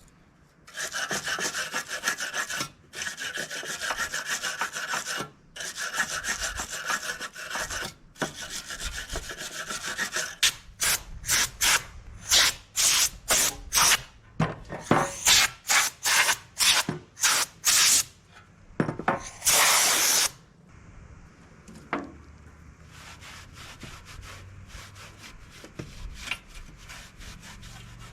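Hand scrubbing on metal during surface prep for paint. A steady rasping scrub runs for about ten seconds, then gives way to separate strokes about twice a second. Near the end comes a loud one-second hiss, followed by fainter scraping.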